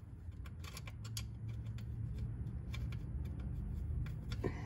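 Faint, irregular small clicks and ticks of wire ring terminals being handled and seated on a metal chassis ground stud, over a low steady rumble.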